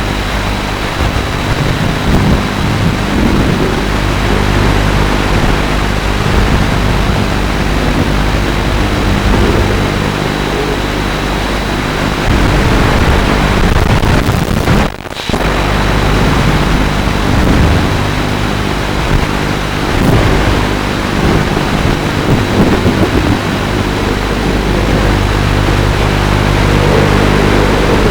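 FPV quadcopter's motors and propellers buzzing in flight, with loud wind rush over the onboard microphone; the sound drops out for a moment about halfway through.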